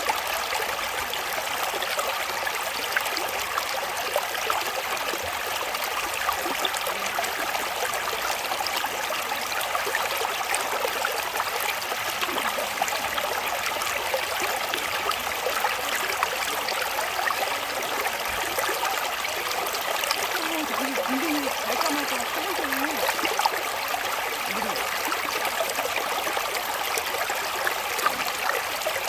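Mountain valley stream flowing steadily, an even, unbroken rush of water.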